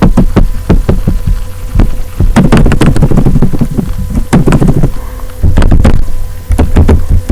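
Computer keyboard being typed on fast: runs of key clicks, several a second, broken by short pauses, over a steady low hum.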